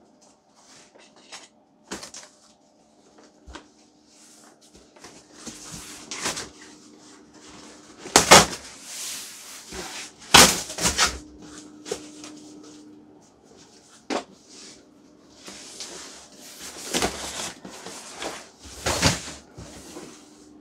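A large cardboard shipping carton being opened and a boxed model-airplane kit pulled out of it: cardboard scraping, rustling and knocking, with the loudest scrapes about eight and ten seconds in and again near the end.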